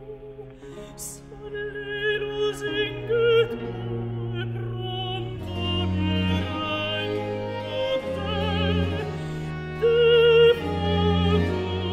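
Background music: an operatic singing voice with wide vibrato over held low notes. The voice swells to louder held notes about three seconds in and again near the end.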